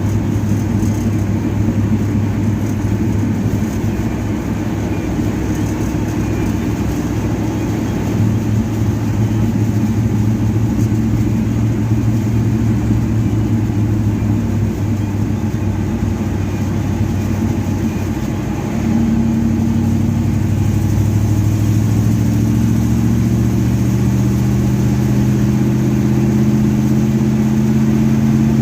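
A 1970 Chevelle's engine with a Holley 850 double pumper carburetor idling steadily, just tuned with power valves fitted to cure a lean primary side. About two-thirds of the way through, the idle steps up slightly in speed and loudness and holds there.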